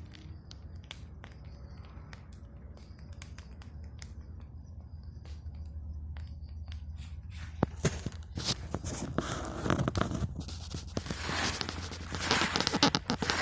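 Wood campfire crackling: scattered sharp snaps at first, turning into dense, louder crackling and popping a little past halfway, over a steady low rumble.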